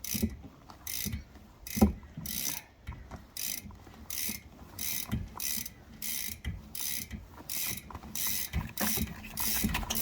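Homemade bicycle-wheel clothes spinner turning: a basket on the wheel makes a rhythmic scraping, mechanical sound about two to three times a second that speeds up near the end, with an occasional knock.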